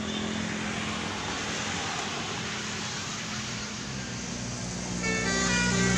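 Steady engine and road noise from a passing vehicle. About five seconds in, a bus's multi-note telolet horn starts playing a tune of stepped, held notes that grows louder.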